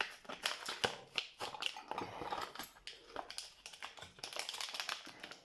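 Stiff plastic packaging being opened to take out a new cross lock: dense, irregular crinkling and crackling with sharp clicks.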